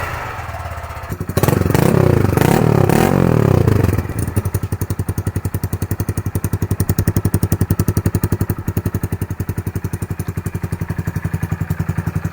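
Honda Grom MSX125's single-cylinder four-stroke engine running through a newly fitted aftermarket dual-outlet full exhaust. It is revved briefly, then from about four seconds in settles to a steady, evenly pulsing idle.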